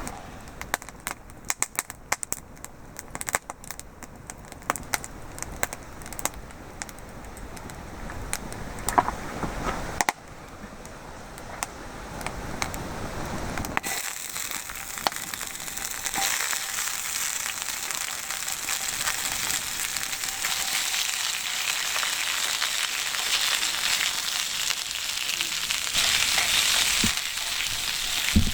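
Wood fire crackling with many sharp pops and snaps, then a steady hiss of food sizzling in an iron frying pan over the fire that grows stronger toward the end.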